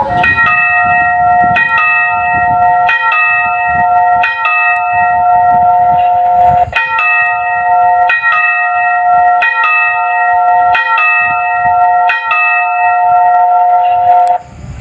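Railway crossing signal bell (genta) ringing through a horn loudspeaker at a crossing keeper's post. It gives a regular series of chiming strikes, about one every second and a half, each note ringing on. This is the station dispatcher's signal to the crossing keeper that a train will soon pass.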